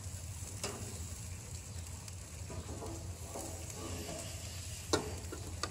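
Ribeye steaks sizzling on the hot grates of a gas grill, a steady hiss, with a few sharp clicks of metal tongs on the grates as a steak is lifted, the loudest about five seconds in.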